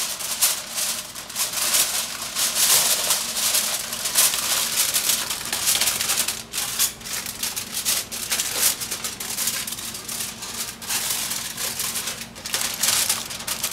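Aluminium foil crinkling and crackling as it is crumpled and pressed around the rim of a cooking pan to cover it, with a few brief pauses.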